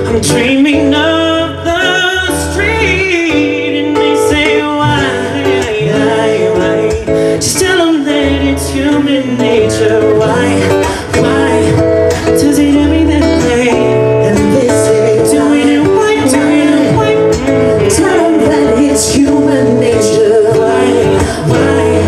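Live band music: a male voice singing long melodic runs with no clear words over acoustic guitar and a steady low bass.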